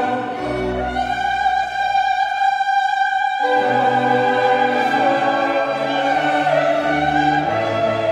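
Mixed choir singing a sacred Christmas piece with instrumental accompaniment. A high held note carries on while the lower voices drop out from about one second in, then re-enter about three and a half seconds in.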